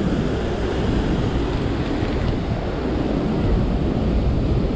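Steady rush of churning water below a concrete dam wall, with wind buffeting the microphone.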